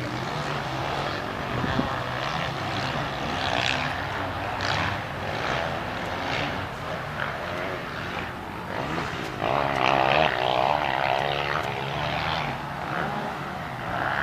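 Motorcycle engines on a motocross track running out of sight, a steady drone with the revs rising and falling. It swells louder about ten seconds in.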